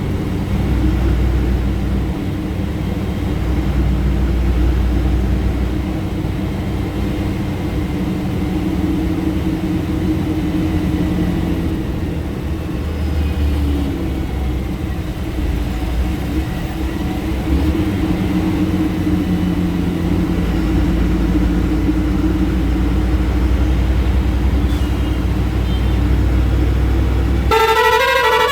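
Ashok Leyland BS VI diesel engine of a 12 m bus running steadily under way, heard from the cabin as a low drone whose level swells and eases. Near the end a horn sounds a quick run of changing notes.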